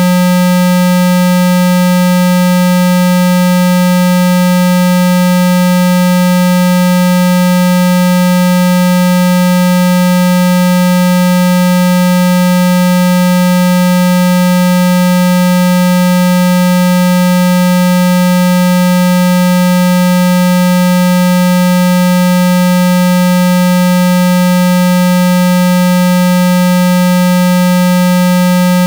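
Steady, unbroken low tone at 195 Hz with fainter higher tones above it, holding one pitch and level throughout: a water-eject tone meant to vibrate trapped water droplets out of a phone speaker.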